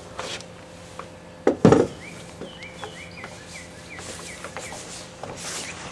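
A hard double knock about a second and a half in, with a few lighter clicks, over a bird chirping repeatedly in short rising notes.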